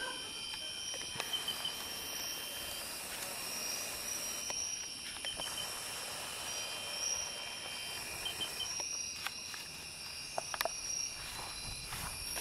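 Night-time insect chorus: steady, high-pitched trilling from several insects at once, with short groups of chirps a little higher every few seconds. A few faint clicks come about nine to eleven seconds in.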